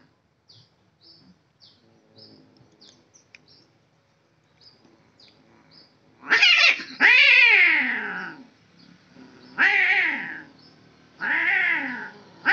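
Two male domestic cats yowling in a territorial standoff. After about six seconds of near quiet come four long, wavering caterwauls that bend up and down in pitch, the second the longest.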